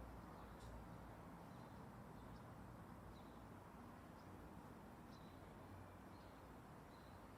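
Near silence: faint outdoor background hiss with several faint, short high chirps scattered through it.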